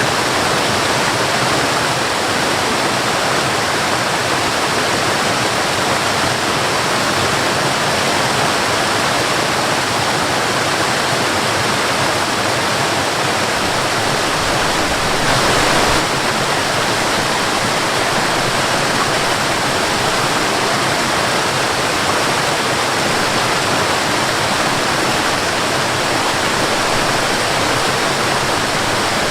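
Waterfall: a steady, dense rush of falling water with no let-up, swelling slightly louder about halfway through.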